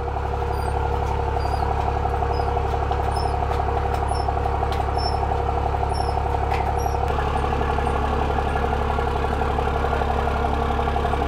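An engine idling steadily, a low even hum that shifts slightly in tone about seven seconds in.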